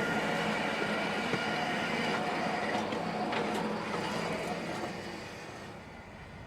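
Bandsaw sawmill running steadily, then winding down over the last couple of seconds.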